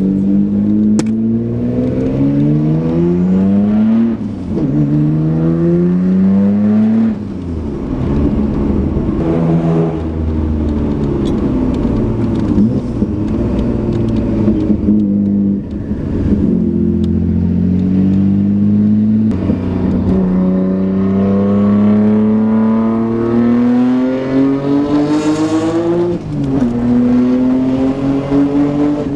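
Nissan Skyline R32 GT-R's twin-turbo straight-six running under acceleration, its pitch climbing steadily in each gear and dropping back at upshifts about 4, 19 and 26 seconds in.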